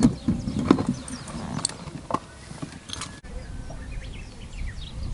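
Scattered sharp clicks and taps of fishing tackle being handled in a small boat. About three seconds in, after a break, faint short bird chirps sound over a low rumble of wind.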